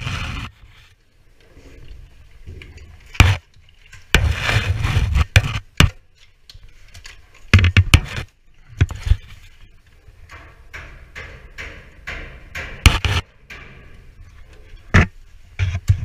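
Irregular knocks, clicks and scraping against the sheet metal of a ventilation duct as work goes on inside it, with a stretch of scraping noise about four seconds in.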